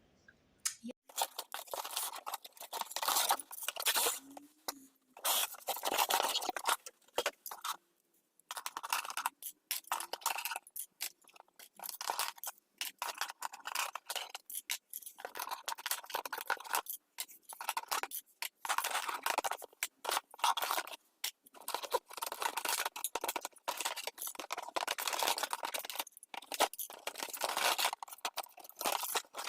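Toy playset packaging being opened and handled: irregular scraping, crunching and tearing of cardboard and plastic, broken by short pauses.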